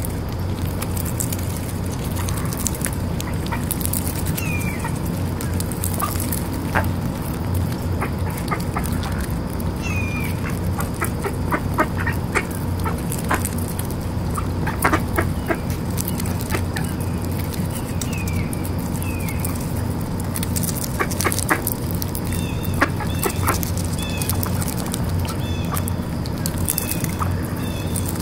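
Mallards feeding on popcorn in grass: quick clicks and crunches of bills picking and snapping up the kernels, with duck calls now and then. A short high chirp repeats every few seconds over a steady low hum.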